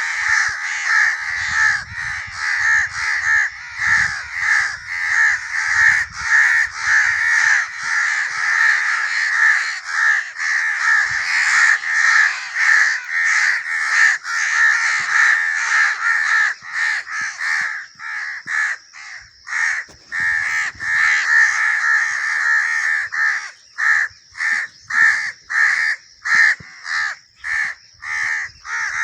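A flock of crows cawing: many caws overlap in a dense chorus, then thin out near the end into separate harsh caws at about two a second. This is a recording played as a crow-repellent sound.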